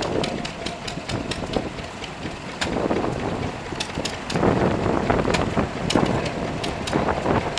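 Small stationary engine running steadily, belt-driving a piston water pump, with sharp ticks at an uneven rate over the running.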